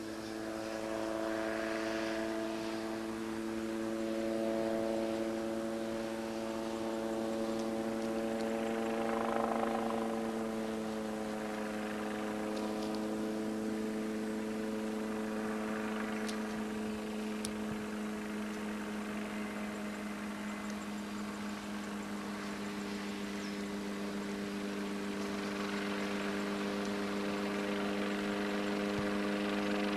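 Helicopter approaching in flight: a steady droning hum of several pitches that grows a little louder near the end as the aircraft comes overhead.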